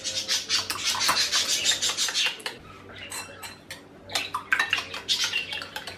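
Metal spoon beating raw eggs in a ceramic bowl: quick clinking and scraping strokes against the bowl, pausing for about a second and a half in the middle before starting again.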